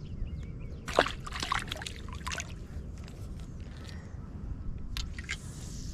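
Water splashing and sloshing close by at the lake's edge: a sharp splash about a second in, a run of smaller splashes after it, and another splash near the end.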